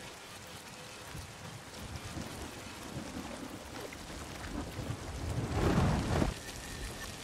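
Film soundtrack of a heavy rainstorm played backwards: a steady hiss of rain, with a rumble of thunder that swells from about four and a half seconds in, is loudest around six seconds, and then cuts off abruptly.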